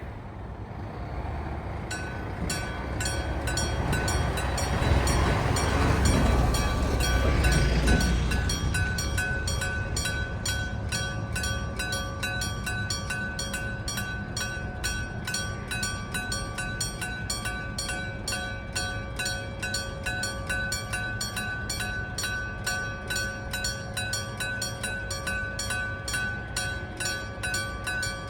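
Electric warning bell of a Japanese level crossing starting up about two seconds in and then ringing on in rapid, evenly spaced strokes. A loud rumble of something passing swells over the first few seconds and fades by about eight seconds in.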